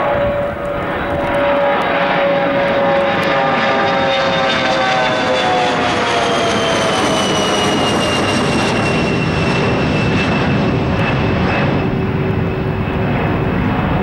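Bombardier CRJ-200 regional jet's two rear-mounted General Electric CF34 turbofans at climb-out thrust, passing overhead: a loud steady roar with whining tones that slide down in pitch a few seconds in as the jet goes by and moves away.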